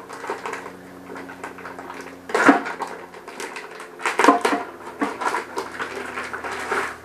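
Plastic packaging crinkling and rustling in irregular bursts as small parts are unwrapped by hand, loudest twice, about two and a half and four seconds in, over a faint steady hum.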